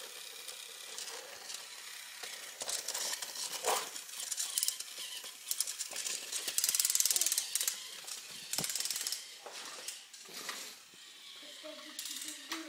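Battery-powered Thomas & Friends toy engines' small geared motors running with a fast, clicking whir, with a few sharp knocks of plastic toy pieces.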